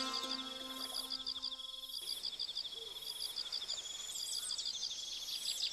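Insects trilling steadily in the forest, a high pulsing drone, with birds chirping near the end. A sustained plucked-string chord rings on underneath and cuts off about two seconds in.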